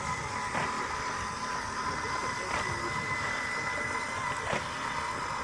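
Robotic solar panel cleaner running with a steady whine. A short click comes about every two seconds.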